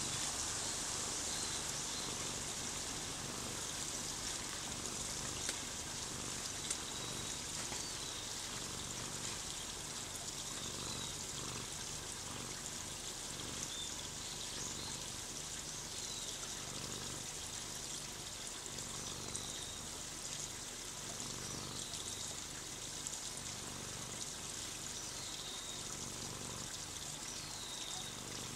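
A steady rushing hiss with faint short chirps every second or two.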